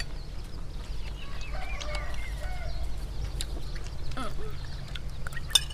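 Ducks quacking in the background in short, irregular calls, with a few sharp clicks over them.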